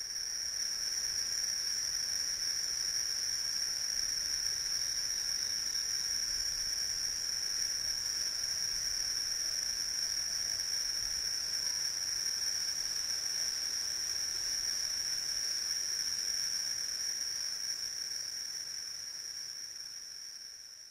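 Crickets trilling in a steady, high-pitched continuous chorus that fades out near the end.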